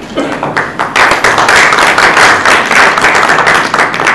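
Audience applauding, the clapping swelling about a second in and fading near the end.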